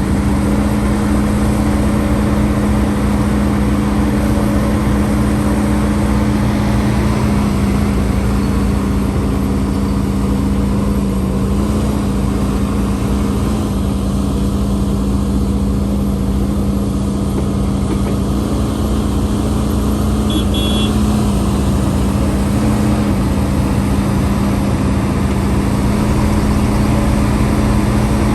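Diesel engine of an HIDROMEK HMK230LC hydraulic excavator running steadily with a constant low drone. A short high-pitched chirp comes about twenty seconds in.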